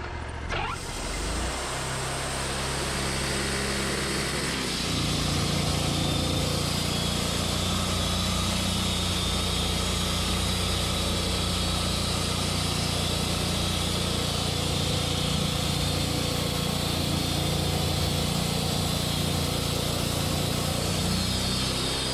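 Portable sawmill's engine running steadily as the blade makes a cut through an ash log, with a steady hiss from the cut. The engine sound steps up and grows fuller about five seconds in, then holds steady.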